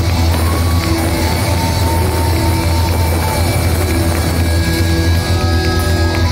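Live heavy metal band playing loud: a steady, heavy low end from bass and drums under electric guitars, with a high melodic line that arches and bends in pitch.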